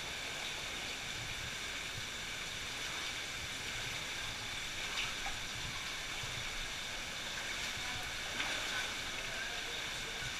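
Steady rushing of water in a cave stream, with a few faint splashes from feet wading through the shallow water.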